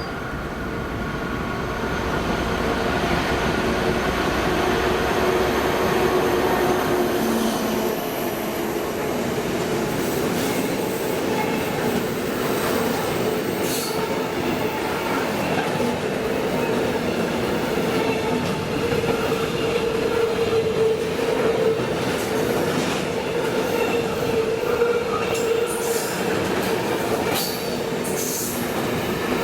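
A diesel-hauled freight train passing close by. It swells in over the first few seconds, then the wagons roll past with a steady squealing wheel tone and repeated clicks over the rail joints.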